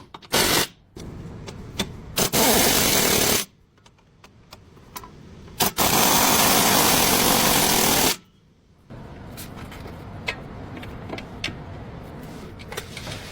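A power tool runs in three bursts: a short one near the start, one of about a second, and a longer one of about two and a half seconds, with quieter workshop background between.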